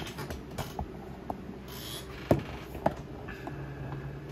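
A handful of light clicks and knocks from hands handling equipment at a laptop, the sharpest a little over two seconds in, with a brief low hum near the end.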